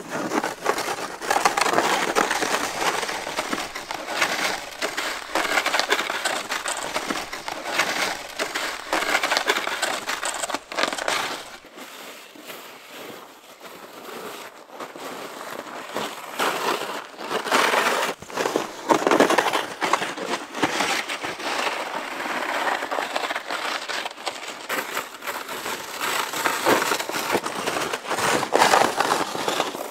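Crunching and scraping over hard-packed snow, a dense run of small crackles that eases off a little in the middle and then picks up again.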